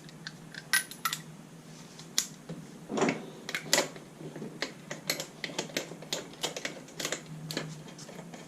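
Metal lug nuts clinking and clattering as they are handled, a string of irregular sharp clicks, over a faint steady hum.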